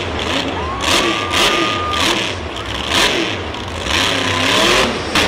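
Monster truck engine revving in repeated surges, roughly one every half-second to second, over a deep rumble.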